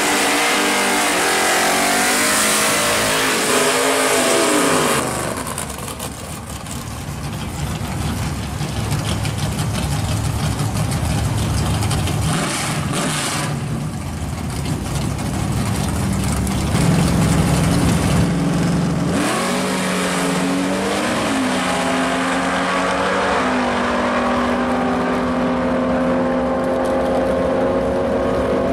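Two drag cars, a Fox-body Ford Mustang and a 1930s coupe, with their engines revving at the start line, then running lower while staging. About two-thirds of the way in they launch: the engine pitch climbs and then holds high and steady at full throttle down the strip.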